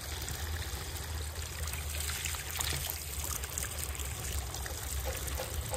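Water running steadily from an outdoor tap into a plastic bottle being filled, splashing over the bottle onto the stones below.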